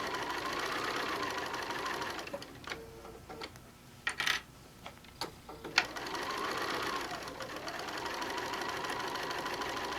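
Sewing machine stitching steadily, stopping after about two seconds for a few seconds with several sharp clicks while the work is turned at a corner, then stitching steadily again.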